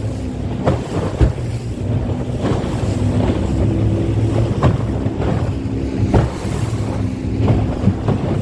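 An engine running steadily, with wind buffeting the microphone and scattered knocks.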